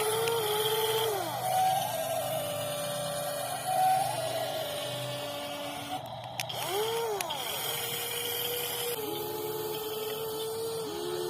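Small electric motors and gearing of a WLtoys 16800 metal RC excavator whining, several at once, each sweeping up in pitch as it starts and down as it stops, with a steadier whine from about nine seconds in.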